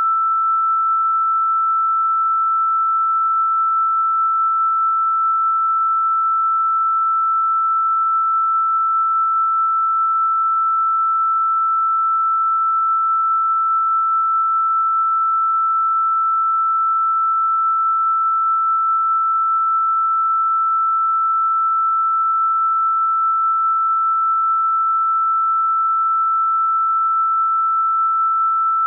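A single electronic pure sine tone held at one steady, fairly high pitch, unchanging throughout, with nothing else under it: a sustained tone from a meditation 'healing frequency' track.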